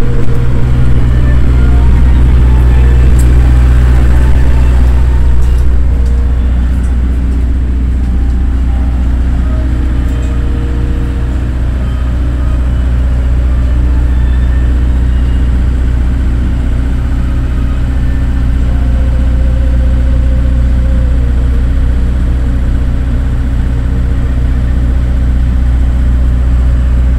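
Diesel railcar engine idling with a steady low hum, heard from inside the carriage while the train stands at the platform; a little louder for the first few seconds.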